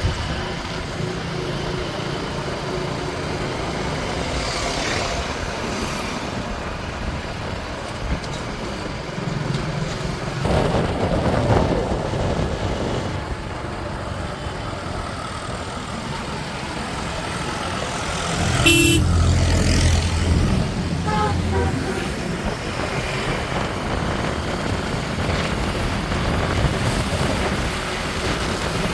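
JCB 3DX backhoe loader's four-cylinder diesel engine running, with one short horn toot about two-thirds of the way through.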